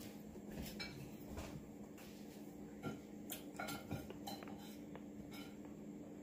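Cutlery clinking against dinner plates as people eat: light, scattered clicks at irregular intervals over a faint steady hum.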